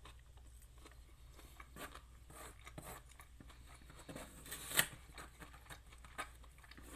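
Quiet eating and food-handling sounds: small clicks, scrapes and rustles of picking at a takeout meal, with one sharp click near five seconds in.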